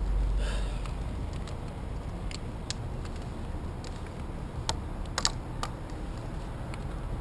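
Scattered sharp clicks and taps from a tree climber's rope and metal climbing hardware being handled, about eight of them and most in the second half, over a low steady rumble.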